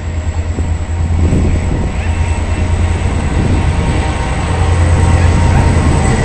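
FEPASA diesel-electric freight locomotive approaching and passing, its engine giving a deep steady rumble that grows louder near the end.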